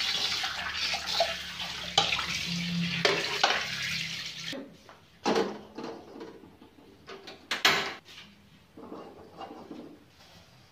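Tap water running into a sink while an aluminium wok is rinsed under it, with a few clanks of the pan. The water stops about four and a half seconds in, and a couple of sharp metal clanks follow as woks are set down on a gas stove.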